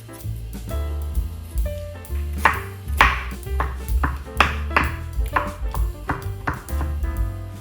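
Knife chopping on a cutting board, a run of sharp strikes about two a second from a little past two seconds in, over background music with a steady bass line.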